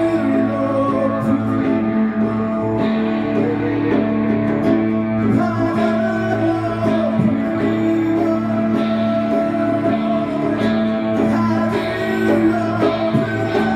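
Live rock band playing a slow song: electric and acoustic guitars hold sustained chords under a singer's voice.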